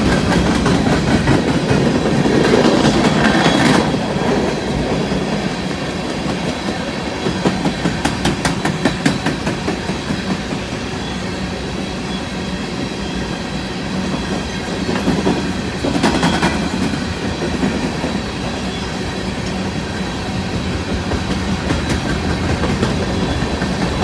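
Empty coal hopper cars of a freight train rolling past close by: a steady rumble of steel wheels on rail with repeated clicks, getting louder for a couple of seconds twice.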